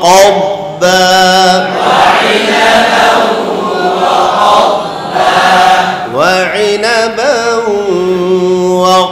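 Quranic recitation drill: a single male reciter chants a verse with long held notes, and from about two seconds in a large group of students chants it back together in unison. Near the end, the single voice returns with rising and falling glides.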